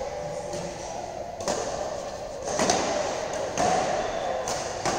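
Badminton rackets striking a shuttlecock during a rally: several sharp hits about a second apart.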